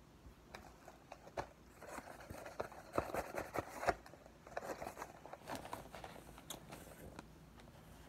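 A metal spoon scooping cornstarch out of its cardboard box while a mouthful of cornstarch is chewed, giving a run of crunching, scraping clicks that is busiest in the middle, with the sharpest clicks about three and four seconds in.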